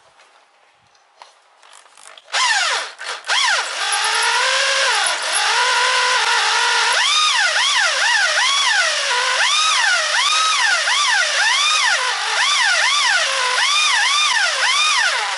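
Corded electric drill running a hole saw that cuts through a stainless steel outboard water tube. It starts about two seconds in and runs loudly to the end, its motor whine rising and falling in pitch over and over as the saw bites into the tube.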